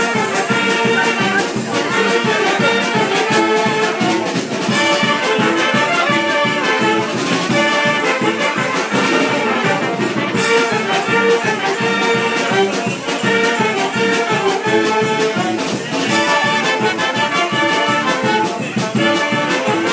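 A banda, a festive brass-and-reed street band, playing live: saxophones, clarinets, trumpets and sousaphones sounding together over a steady percussive beat.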